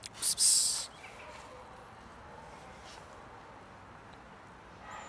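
A person's short, sharp hissing 'psst' near the start, made to call a cat, in two quick parts. After it comes a faint, steady outdoor background.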